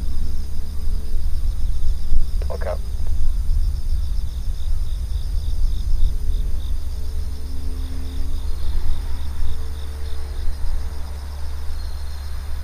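Insects chirping in an even, rapid pulse over a steady low rumble, with a short single call about two and a half seconds in.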